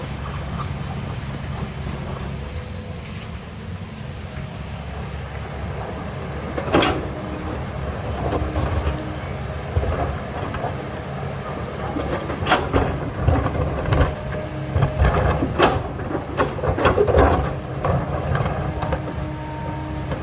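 Diesel engine of a heavy earthmoving machine running steadily under load, with the bucket scraping and clanking against rock and soil; several sharp knocks come in the second half.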